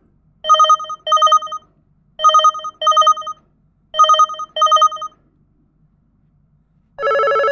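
LG GW300 mobile phone ringtone imitating a telephone bell: three double rings, each pair of short rings coming about every second and three quarters. Near the end a different, steady electronic tone starts: the next ringtone.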